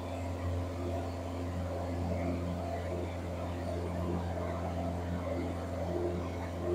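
Steady drone of a Piper PA-28 Warrior's four-cylinder Lycoming engine and propeller, heard from inside the cabin in level flight.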